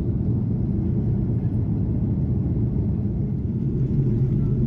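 Steady low rumble of an airliner's cabin in flight: engine and airflow noise heard from inside, even and unbroken.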